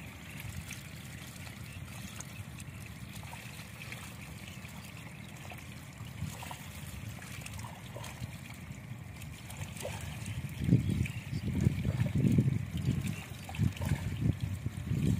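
Shallow water trickling steadily as it drains through a narrow channel cut in a mud bank. From about ten seconds in, irregular low rumbles rise over it and are louder than the trickle.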